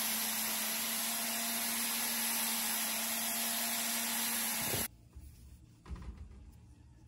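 An electric power tool's motor runs steadily with a strong hiss and a low hum. It is switched off nearly five seconds in, its hum falling as it winds down, and a soft knock follows about a second later.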